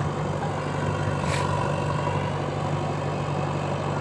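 Diesel engine of a JCB backhoe loader running steadily at low revs while the loader arm swings round to load earth into a tractor trolley, with a short hiss about a second in.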